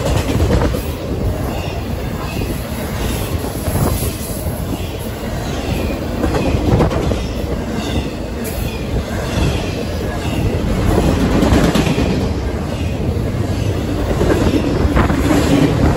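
Double-stack intermodal freight cars rolling past close by at track speed: a steady, loud rumble of steel wheels on rail, with clickety-clack as the wheels cross rail joints.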